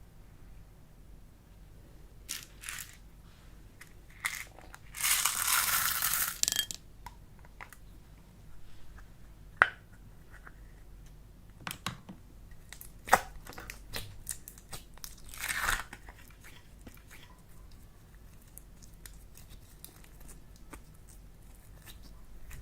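Hands working slime and clay, making scattered crinkling, tearing and squishing noises. There is a longer rustle about five seconds in, another later on, and a few sharp clicks between them.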